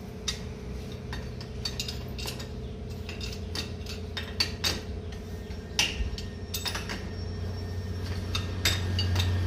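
Irregular metallic clinks and clicks of a hand tool against a metal kitchen tap as the tap is turned and tightened into its wall fitting, over a steady low hum.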